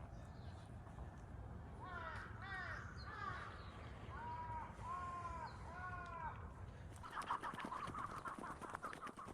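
Crows cawing, a run of about half a dozen separate arched calls over a low rumble. About seven seconds in, a busier sound of rapid clicks and chatter takes over.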